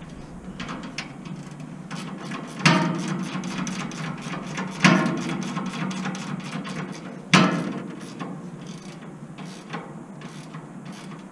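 Ratchet spanner clicking in short runs while bolts under a bus are tightened during fitting of the fuel tank, with three louder metallic knocks that ring on briefly.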